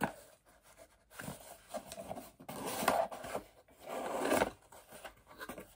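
Packaging rustling and scraping as a boxed mug is unpacked, in uneven stretches that are loudest about two and a half to three seconds in and again just past four seconds.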